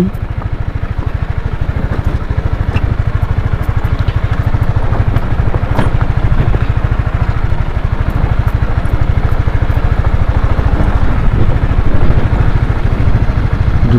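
Honda CBR150R's single-cylinder engine running steadily, heard close up from the bike.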